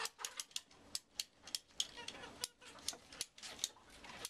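Hand-held PVC pipe cutter being squeezed through a PVC pipe: a series of sharp clicks, about two or three a second, as the blade works through the pipe.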